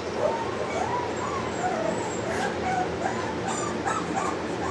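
Boston Terrier puppies whimpering and yipping in a string of short, high, wavering cries.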